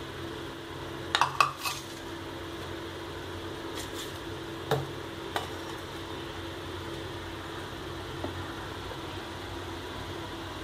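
A nonstick frying pan set down on a gas stove's metal grate: a quick cluster of metal clanks about a second in, then two single knocks a few seconds later, over a steady low hum.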